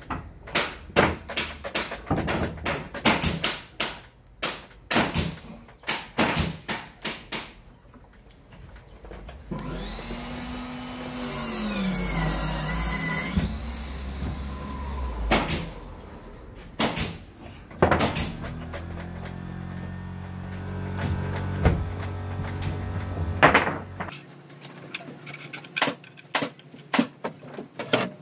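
Scattered clicks and knocks of hand tools and parts during front disc brake caliper work on a scooter. Near the middle, a louder whirring sound rises and falls in pitch for about four seconds.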